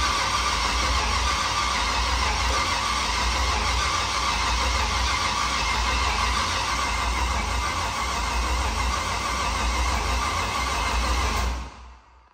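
LS V8 engine swapped into a Nissan S14 going steadily on its first start attempt, run without coolant, then shut off suddenly near the end.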